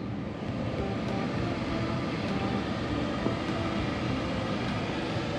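Steady low wind rumble on the microphone, with a few faint footsteps on the banked track's surface.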